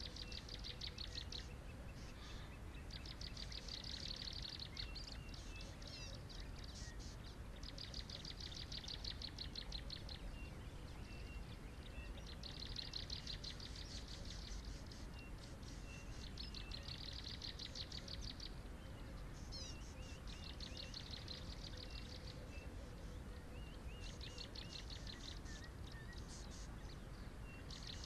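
A high-pitched, rapidly pulsing trill, each one a second or two long, repeats every few seconds. Faint thin chirps come between the trills, over a low steady background hiss.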